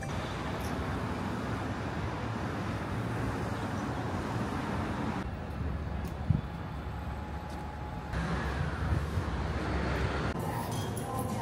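Steady traffic and road noise, a rumbling rush that changes character a few times, with one short low thump just past six seconds in.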